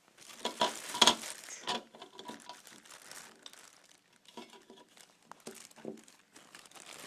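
Speaker packaging crinkling and rustling as a speaker is unwrapped by hand, with a dense flurry of crackles in the first couple of seconds and scattered softer rustles after.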